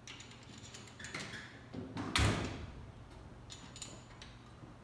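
Metal hand tools clinking and being handled, with one loud clank about two seconds in.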